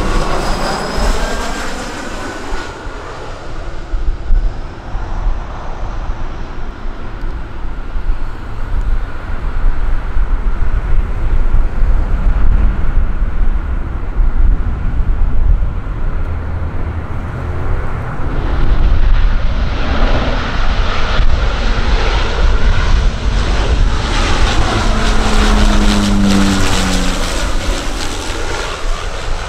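Embraer E175 twin-engine jet passing low overhead on final approach, its engine whine falling in pitch as it goes by, then a steady jet rumble during the landing with heavy low buffeting of wind on the microphone. The engine noise grows louder and brighter about two-thirds of the way through. Near the end, a Saab 340 twin-turboprop comes by with propeller tones falling in pitch.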